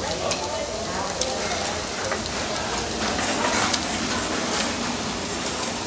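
Marinated pork galbi sizzling on a tabletop barbecue grill, a steady frying hiss, with a few light clicks and indistinct voices in the background.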